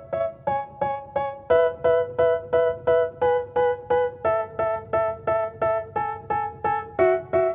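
Background music: an electric piano playing short repeated chords, about four a second, with the chord changing every few seconds.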